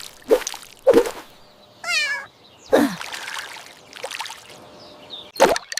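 Short cartoon sound effects: brief falling squeaks, a wavering trilled squeak about two seconds in, and a quick run of sharp clicks near the end.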